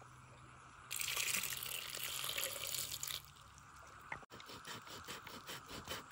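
Running water for about two seconds, starting about a second in and stopping abruptly, followed by faint scattered clicks.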